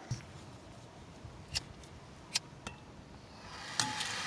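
A few light clicks and taps from handling soldering gear, then a click and the steady hiss of a soldering torch starting up near the end.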